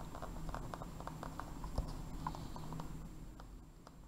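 Quick light clicks of calculator keys being pressed, several a second, thinning out after about two and a half seconds.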